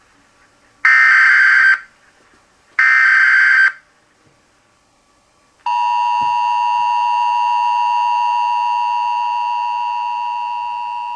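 Emergency Alert System signal: two harsh, buzzing data bursts of about a second each, then the steady two-tone attention signal, which starts a little past halfway and fades out near the end.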